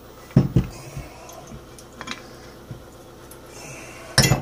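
Scattered sharp clicks and knocks of metal tools and engine parts being handled on a workbench, with a louder double clatter near the end.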